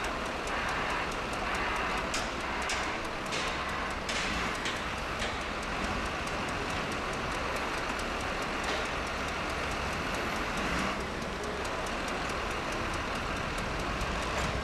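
Diesel engines of wheel loaders running steadily as they lift and set large precast concrete blocks, with a handful of clanks and knocks about two to five seconds in.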